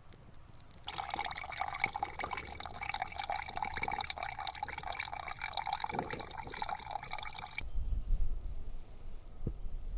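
Water running from a water container's tap into a stainless steel pot, a steady splashing hiss that stops suddenly about seven and a half seconds in. A low rumble follows.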